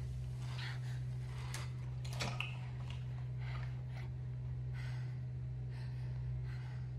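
A steady low electrical hum, with soft breathy puffs coming every half second to a second and a couple of faint clicks.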